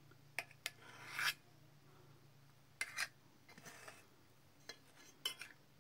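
Knife blade scraping against an enamel plate as it slices through soft boiled sweet potato: several short, faint rasping scrapes spaced irregularly, the clearest about a second in and about three seconds in, over a low steady hum.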